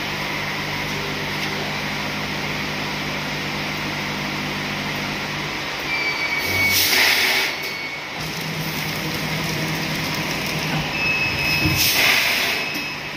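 Two-head automatic weighing and packing machine running with a steady low hum. Twice, about six seconds apart, a short high tone is followed by a louder rushing burst lasting about a second and a half, as the machine works through its packing cycle.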